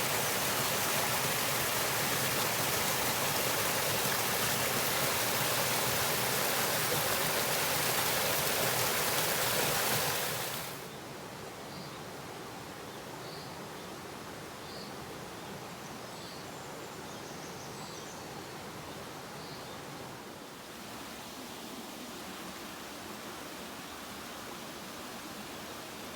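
Close, steady rushing of a forest stream that cuts down sharply about ten seconds in to a quieter, even water hiss, with a few faint, short bird chirps over it.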